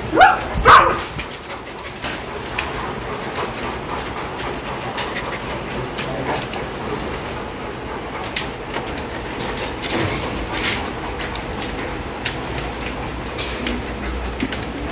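A dog barks twice in quick succession at the start, loud and short, then quieter background with scattered faint clicks.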